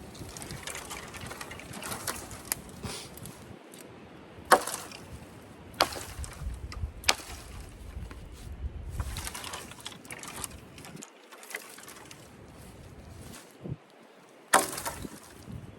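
Hatchet chopping into a poplar trunk: sharp chops, three in a row about a second and a half apart and a loud one near the end, with rough noise between them.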